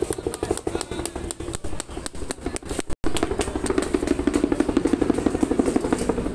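A small engine running with a rapid, steady beat. The sound drops out for an instant about three seconds in.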